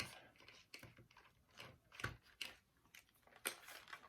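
Faint, scattered clicks and ticks of a screwdriver working a screw loose from a plastic toy blaster's housing.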